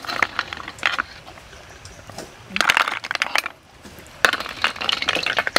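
Boiled river snail shells clinking against a metal ladle, the wok and each other as they are scooped out and tipped into a bamboo basket, in three bursts of sharp clicks.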